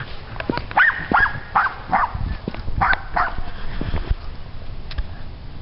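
An animal's short, sharp calls: about five in quick succession, then two more about three seconds in, with a few low thumps underneath.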